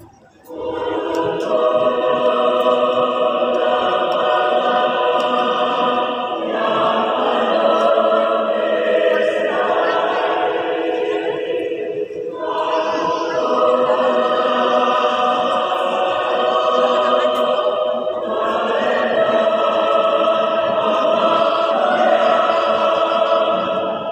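A choir singing sustained chords in harmony, beginning about half a second in, with the phrases changing roughly every six seconds.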